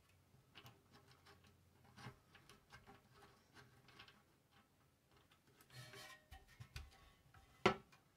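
Light clicks and taps of the plastic azimuth-and-elevation mount of a Ubiquiti LiteBeam AC Gen 2 antenna being handled and fitted with its bolt, with one sharper click near the end.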